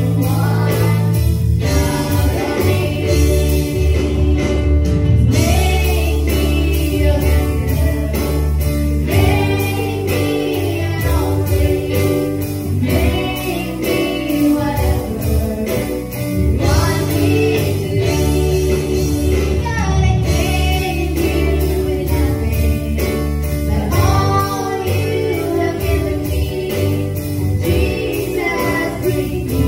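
Praise-and-worship music: a group of singers over a band with a steady beat.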